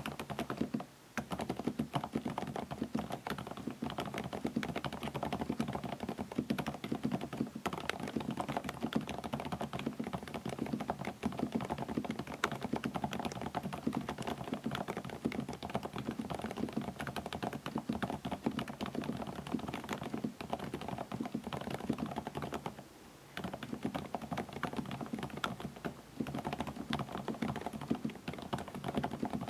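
Steady, fast typing on a Varmilo Minilo75 mechanical keyboard fitted with Kailh Prestige silent (low-noise) switches: a dense run of key strokes, with a short pause about a second in and another about three quarters of the way through.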